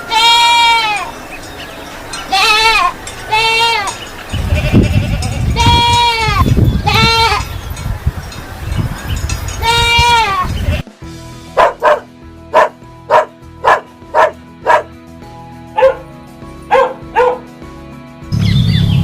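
Goat bleating, a string of loud wavering calls, each falling in pitch. About eleven seconds in the sound changes abruptly to a run of short, sharp sounds about two a second.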